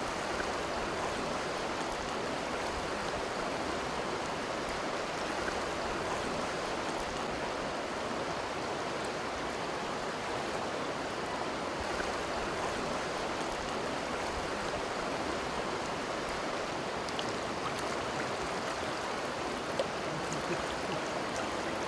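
River Jerte flowing over a stony bed: a steady, even rush of running water.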